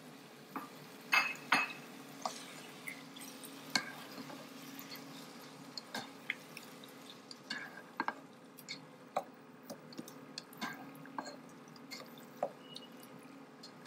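Black slotted plastic spatula stirring and scraping chicken pieces through masala in a ceramic-lined pan, giving irregular clicks and knocks against the pan as the chicken is browned (bhuna). Two sharp, ringing knocks about a second in are the loudest, over a steady low hum.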